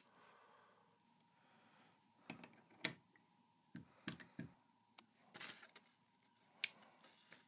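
Faint, irregular light clicks and taps of small metal parts and hand tools being handled while a motorcycle water pump is reassembled, about seven sharp clicks with a brief rustle in between.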